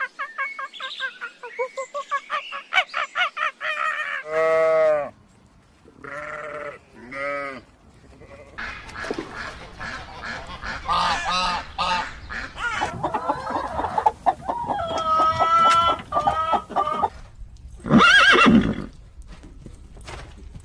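Farm animals calling one after another: a fast run of short repeated calls, then a series of different longer calls with short pauses between them, and one loud call near the end.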